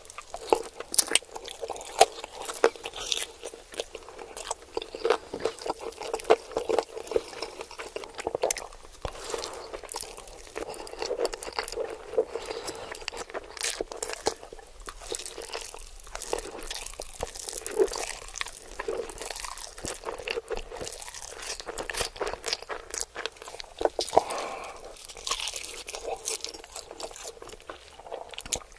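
A person biting and chewing crunchy food close to the microphone: rapid, irregular crunches mixed with chewing.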